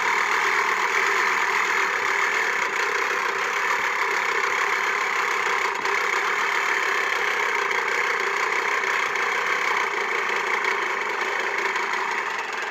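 EZ-Tools 18-inch manual reel mower pushed across grass, its spinning reel blades whirring steadily against the bed knife as they clip the grass. The reel has just been adjusted and set to its lowest cutting height.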